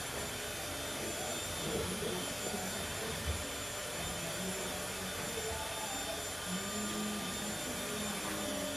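Steady whooshing background noise, like a fan or air conditioner, with short faint low sounds over it and a single faint knock a few seconds in.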